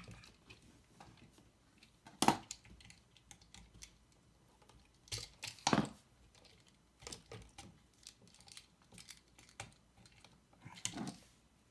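Small clicks, taps and scrapes of hands and a tool working stiff copper wires off the screw terminals of a plastic wall outlet, with a sharp click about two seconds in and a longer scraping rattle around the middle.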